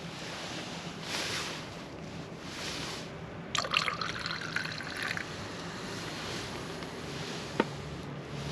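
Small wood fire in a mini fire stand, crackling and hissing, with a dense run of crackles in the middle and one sharp pop near the end.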